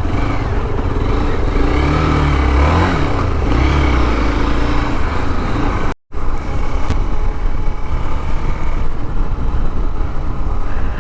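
Hero Xpulse motorcycle's single-cylinder engine running on the move, under loud wind and road noise; the engine pitch rises and falls a few times around two to four seconds in. The sound cuts out for an instant about six seconds in.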